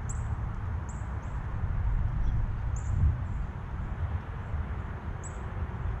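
Small songbirds giving a handful of short, very high chirps, scattered a second or two apart, over a low steady background rumble.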